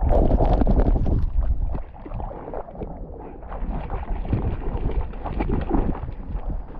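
River water splashing and rushing close to a dog-worn action camera, with wind rumbling on the microphone. It eases for a second or so about two seconds in.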